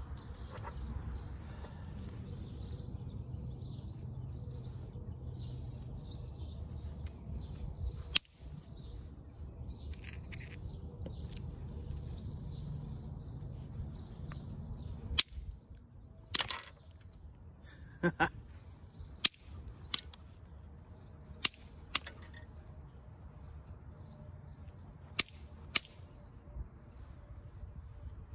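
Copper-tipped billet striking the edge of a green stone blade preform, giving about ten sharp clicks a second or several apart in the second half as flakes come off. Before that, faint bird chirps over a low rumble of wind.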